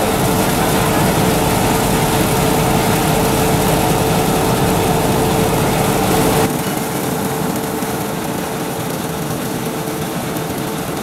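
Cocoa bean peeling machine running: a steady mechanical hum with one held tone over a dense, even hiss. About six and a half seconds in, the sound drops quieter and loses its low rumble.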